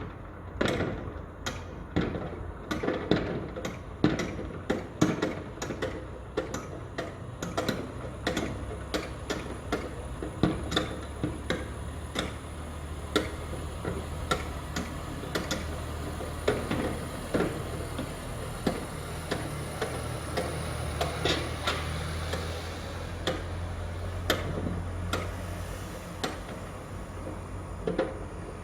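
Construction site ambience: frequent sharp knocks, roughly one or two a second and irregular, over a steady low machinery hum that grows a little louder in the second half.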